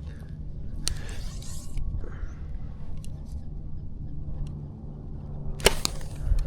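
Wind rumbling on the microphone, with a short click about a second in and then the sharp snap of a bow shot near the end, the loudest sound.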